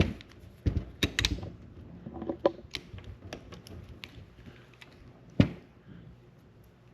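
Merwin Hulbert .44 revolver's action worked by hand: a string of metallic clicks and snaps from the hammer and cylinder, with a sharp snap about five and a half seconds in.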